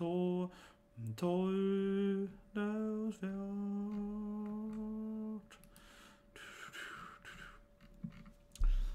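A man humming a few long, held notes one after another. After about five seconds they stop, leaving only faint noise.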